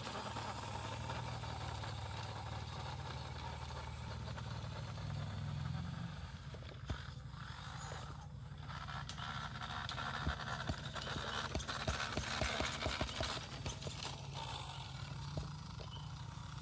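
WPL D12 RC mini pickup's electric motor and gearbox running with a steady low hum for the first six seconds or so, then a run of irregular clicks and light knocks with tyre scrape as the truck drives over rough concrete.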